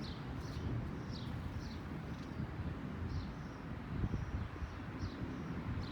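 Gusty wind rumbling on the microphone, with a bird giving short, high, falling chirps about once a second.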